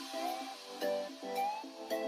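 Background music: upbeat instrumental track with plucked, sliding notes over a regular beat.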